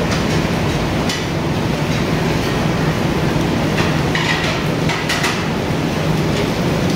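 Steady restaurant noise: a constant rumbling hum with a few clinks and knocks of utensils or dishes.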